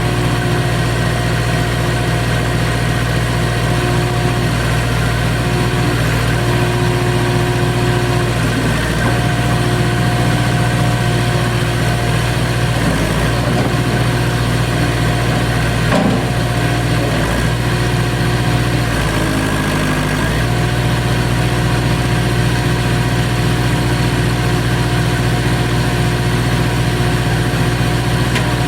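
Case 580CK backhoe loader's engine running steadily at idle, its speed dipping briefly about two-thirds of the way through before settling back.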